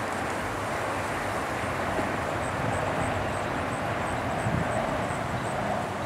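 A steady, distant engine drone whose pitch and level waver slowly, typical of a light aircraft passing far overhead.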